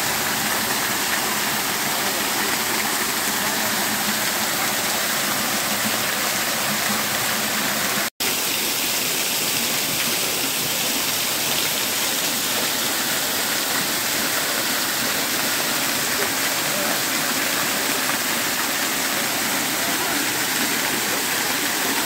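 Small forest waterfall, two strands of water falling over rock onto stones and into a shallow pool, making a steady rush. The sound drops out for an instant about eight seconds in.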